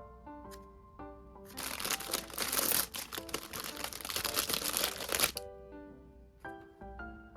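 A squishy toy being squeezed and handled: a dense crinkling, crackling noise that starts about a second and a half in and lasts about four seconds. Background music with plucked notes plays throughout.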